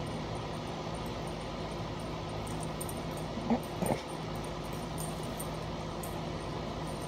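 A dog gives two short yips close together about halfway through, over a steady low hum.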